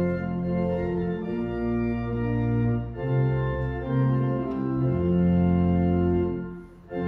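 Church organ playing slow, held chords that change every second or so, with a brief break in the sound near the end.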